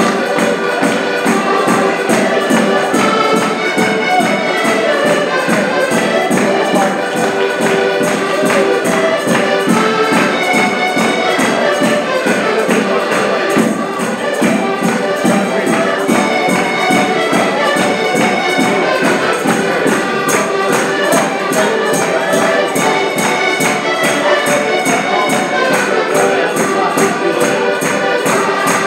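A traditional Portuguese folk tune played live on several button accordions in unison, with a bass drum keeping a steady beat.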